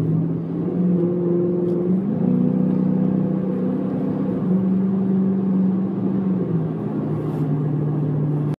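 A car's engine and road noise heard inside the cabin: a steady hum whose pitch shifts up and down a few times.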